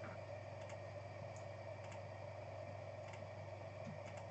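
A few faint, scattered clicks at a computer while numbers are randomized on screen, over a steady low hum.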